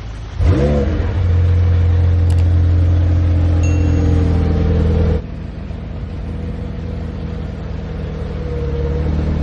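McLaren 720S's twin-turbo V8 starting up, with a sharp flare of revs about half a second in, then settling into a steady idle that gets quieter about five seconds in.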